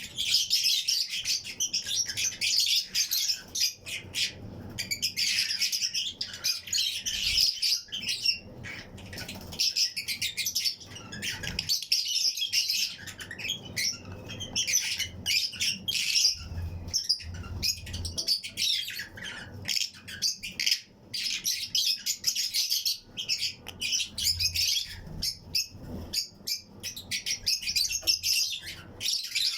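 A colony of Fischer's and lutino lovebirds chirping and squawking continuously, many high calls overlapping, with occasional wing flaps and clicks.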